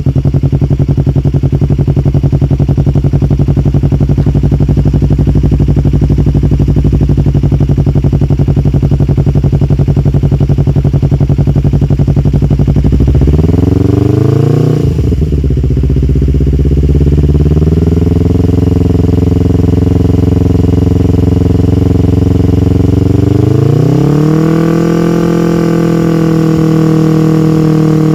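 Yamaha R25/MT-25 250 cc parallel-twin running through an aftermarket R9 Assen exhaust. It idles steadily, then is blipped sharply about halfway and falls back. It then holds at a somewhat higher steady speed, and near the end rises smoothly to a higher held rpm.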